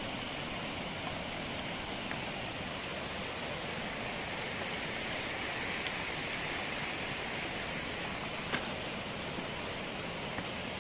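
Steady rush of a mountain stream cascading down a rocky gully, with a faint tick near the end.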